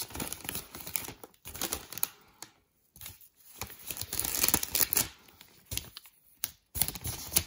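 Plastic snack bag with a foil lining crinkling in gloved hands as it is turned over and smoothed out, in several bursts of rustling with short pauses between.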